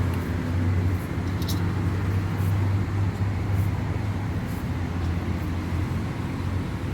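A steady low motor hum, like an engine running, with a few faint clicks over it.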